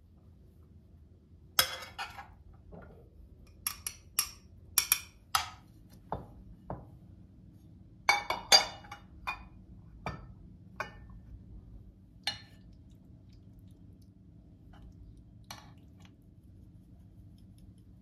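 Ceramic dishes and a serving utensil clinking and knocking as food is plated into a stoneware bowl: a dozen or so short, sharp clinks, bunched in the first two-thirds, with a last faint one near the end.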